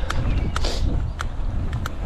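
Mountain bike in motion: a heavy, uneven wind rumble on the microphone with sharp clicks and rattles from the bike, about eight in two seconds, and a short hiss a little after half a second in.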